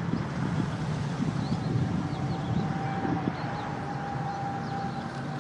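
Distant jet engines of a Boeing 787-8 airliner running on the runway: a steady low rumble with a thin steady whine above it.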